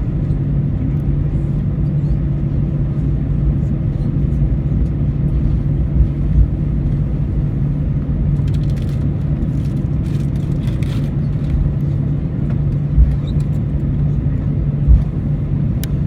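Steady droning hum of an Airbus A319's cabin on the ground after landing, with low rumble beneath. There are a pair of dull thumps about six seconds in and two more later on.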